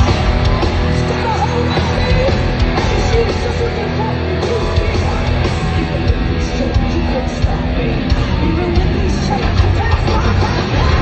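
Heavy metal band playing live, loud and dense, heard from within the crowd.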